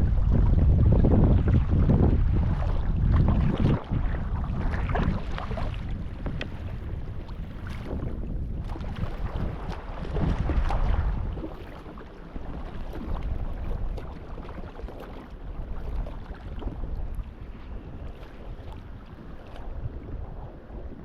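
Wind buffeting the microphone over water sloshing and splashing around a folding sea kayak as it is paddled. The wind rumble is heavy for the first ten seconds or so, then eases.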